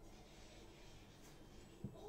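Near silence: room tone, with one short soft tap near the end, a finger tapping the touchscreen of a OnePlus 6 smartphone.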